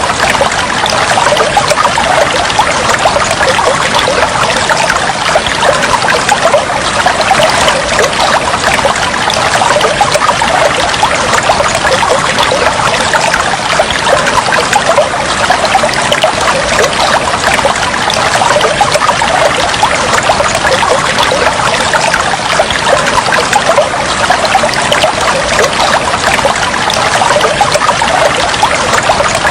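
Steady trickling and splashing of flowing water, a continuous babble without pauses.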